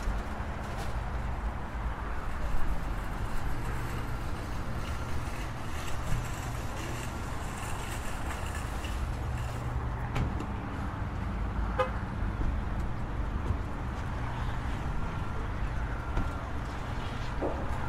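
Supermarket car park ambience: a car engine running low and steady, with scattered clicks and a few short high tones.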